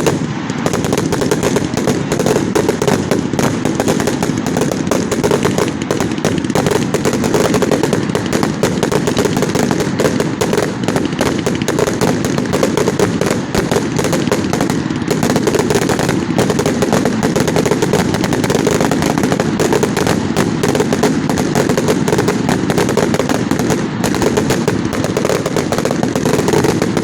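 A 360-shot 'Gatling gun' firework cake firing shot after shot in a fast, unbroken rattle, loud and continuous like machine-gun fire.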